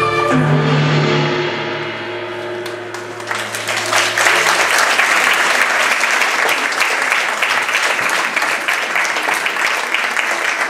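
A piece of music ends on a held final chord that fades out, and about three seconds in an audience breaks into applause that carries on steadily.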